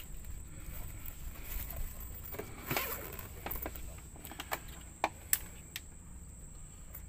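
Scattered light clicks and knocks of fishing gear being handled in a small boat, with a few sharper ticks about five seconds in, over a low steady rumble.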